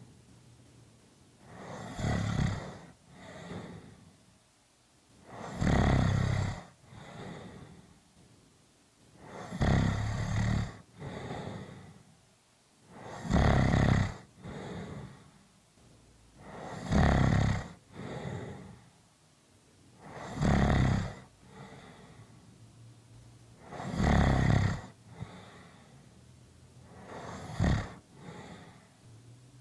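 A person snoring steadily: eight loud, low, rattling snores about every three and a half seconds, each followed by a shorter, quieter breath sound.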